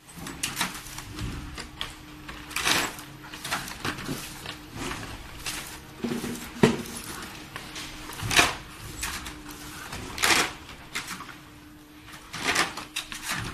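Flat-surface sticker labeling machine running as trays pass on its conveyor. A motor hum comes and goes in short stretches under irregular clicks, swishes and knocks, with a sharp knock about halfway through.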